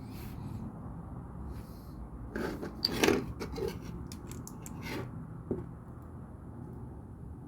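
Plastic LEGO pieces being handled and pressed together: a cluster of clicks and rattles between about two and five seconds in, with the loudest click about three seconds in.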